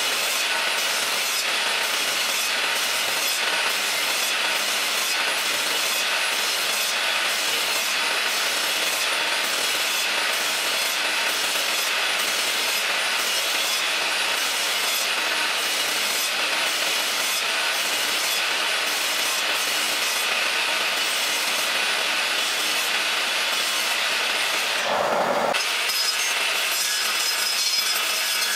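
Makita miter saw cutting a row of closely spaced kerfs in a wood block: a steady, even saw noise, with a brief low thump near the end.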